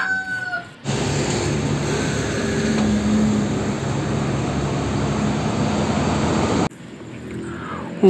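A rooster crows briefly in the first second. Then a Hino tanker truck's diesel engine runs steadily as the truck drives on the road, with tyre and road noise, for about six seconds, cutting off suddenly near the end.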